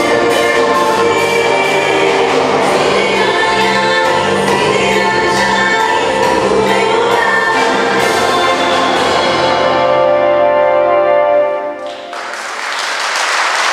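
Female vocal group of four singing a Malagasy gospel song with keyboard accompaniment, closing on a held final chord about twelve seconds in. Audience applause starts right after the chord ends.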